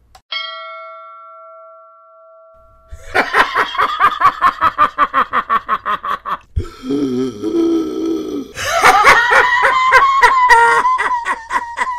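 A bell ding rings once and fades over a couple of seconds. From about three seconds in comes a fast run of repeated pitched hits, about five a second, broken in the middle by a lower wavering sound.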